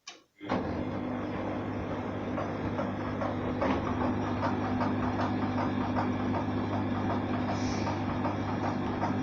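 A small electric motor running steadily with a hum and a rapid rattle, switched on with a click and cut off suddenly.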